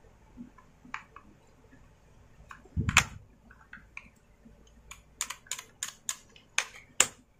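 Small clicks and knocks of plastic and metal parts being handled and fitted by hand on a Stihl MS250 chainsaw during carburettor reassembly. There is a heavier knock with a dull thud about three seconds in, then a quick run of sharp clicks near the end.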